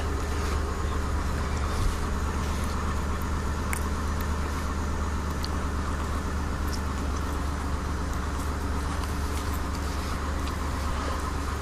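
A vehicle engine idling steadily, a low hum with a few faint clicks.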